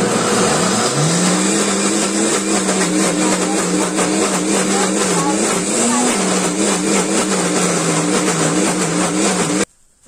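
Countertop blender running on a thick, heavy mix of fresh corn kernels with coconut milk and butter. Its motor pitch climbs as it comes up to speed in the first second, then holds steady with slight dips as the heavy batter loads it, and it cuts off abruptly just before the end.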